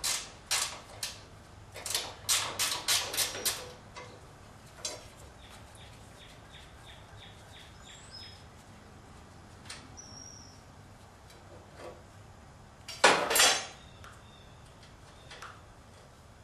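Hand ratchet wrench loosening a bolt on a garden tractor's steel frame: sharp metal clinks and clanks of the tool on the bolt, a run of quick ratchet clicks, about five a second, midway, and one loud clatter of metal near the end.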